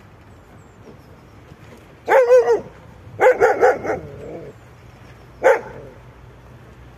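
Dog barking in warning at a man approaching its handler: one bark about two seconds in, a quick run of barks a second later, and one more sharp bark near the end.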